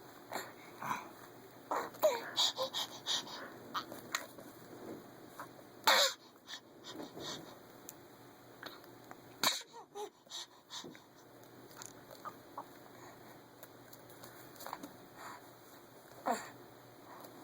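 A baby making short raspy, wheezy vocal sounds, the growly 'Chewbacca sounds', mixed with breathy laughs, in scattered spurts with the sharpest about six and nine and a half seconds in.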